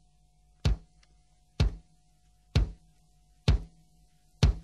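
Evenly spaced single drum-like thumps, about one a second, five in all, over a faint steady tone.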